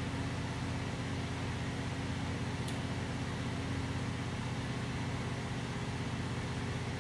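Steady low mechanical hum with an even hiss, from equipment running in the room. A faint click comes a little under three seconds in.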